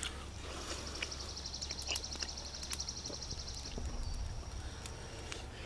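A bird singing a high, fast, even trill for about three seconds, thinning into a faint steady high note, over the scattered pops of a wood fire crackling.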